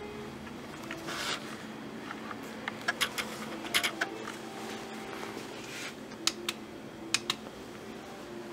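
A few small sharp clicks, mostly in pairs, and a couple of soft rustles from hands handling desk equipment, over a steady low hum.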